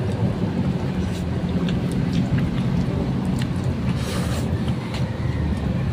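A motor running with a steady low hum, with a few faint clicks over it.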